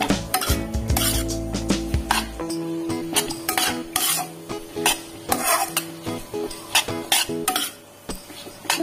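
Metal spatula scraping and tossing noodles in a wok as they stir-fry, with a sizzle under many quick, uneven scrapes and clinks.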